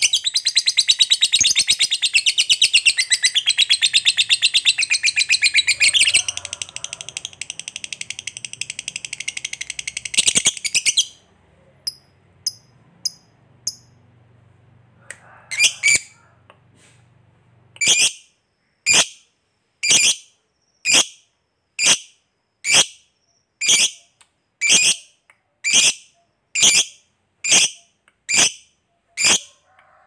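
Fischer's lovebird singing a long, rapid chattering trill, the "ngekek panjang" prized in competition lovebirds, lasting about eleven seconds. A lull with a few scattered chirps follows, then sharp single calls about once a second.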